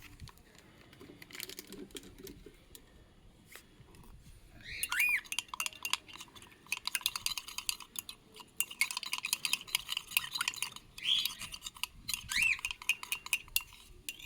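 A spoon clinks rapidly against a glass as hand-feeding powder is stirred into lukewarm water, the clinking starting about a third of the way in. A few short chirps from the young cockatiels come through the clinking.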